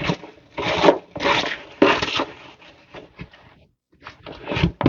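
Packaging rustling and scraping as a box is rummaged through by hand: three noisy handling bursts in the first half, then lighter clicks and crinkles.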